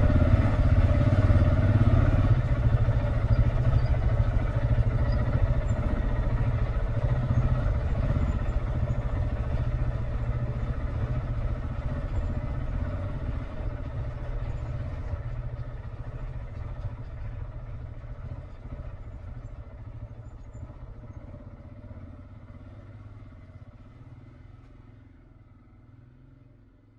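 Motorcycle engine running at a steady speed, growing steadily fainter until nearly silent at the end.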